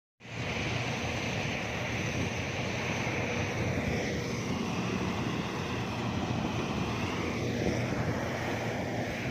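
Harvest machinery engine running steadily, a constant low drone with a hiss over it, cutting in abruptly just after the start.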